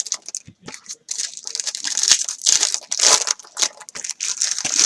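Foil trading-card pack wrappers crinkling and tearing as they are ripped open and handled, in uneven runs of rustling.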